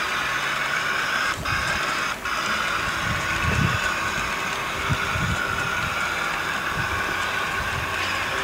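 Model railway freight train of flat wagons and a brake van running past, a steady mechanical whir of the wheels rolling on the track.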